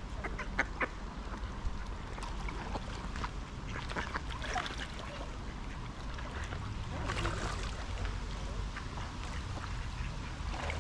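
Mallard ducks quacking now and then in short scattered calls, over a low steady rumble.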